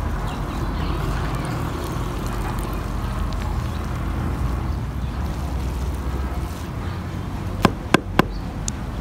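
Long wooden spatula stirring thick rice in a large aluminium pot, with three sharp knocks in quick succession near the end as it strikes the pot, over a steady low rumble.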